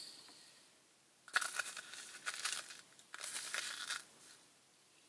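Small candy sprinkles rattling and pouring in a plastic measuring scoop and cup as they are scooped and tipped into a cotton candy machine's spinner head. The sound comes in two bursts, each a second or so long.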